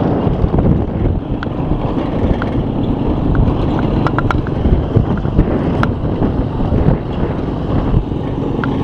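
Wind buffeting the microphone over the steady running of a motorcycle engine and tyre noise while riding along a road, with a few faint clicks.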